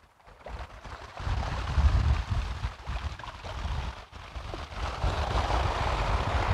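Wind buffeting the microphone in gusts over the hiss of small waves washing up a shingle beach. The wash grows louder near the end.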